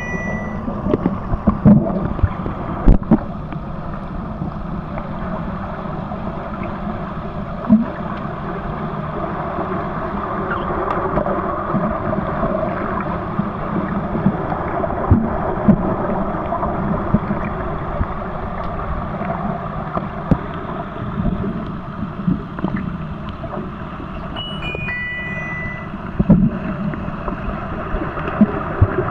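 Underwater sound in a swimming pool during an underwater hockey game: a steady muffled rush of water and bubbles from the finning players, broken by scattered sharp clicks and knocks. About 24 seconds in, a short run of three electronic beeps steps down in pitch.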